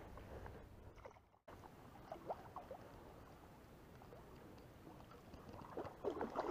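Faint splashing and lapping of water from a hooked carp being played close to the bank, near a landing net in the water; the splashing gets louder about six seconds in.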